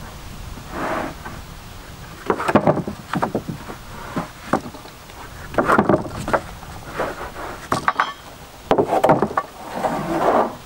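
Rough-sawn pine boards being slid and knocked against one another as they are shifted on a stack: irregular wooden clunks and scrapes, in about seven bursts a second or so apart.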